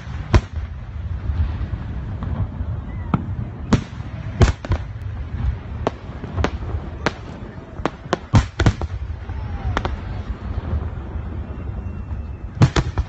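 Aerial fireworks shells bursting in an irregular series of sharp bangs, about twenty in all, bunched in a quick volley a little past the middle and a loud pair near the end, over a steady low rumble.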